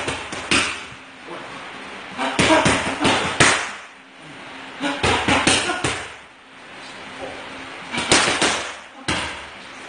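Boxing gloves striking focus mitts in quick combinations: sharp slapping smacks in clusters of several punches, with pauses of a second or two between them.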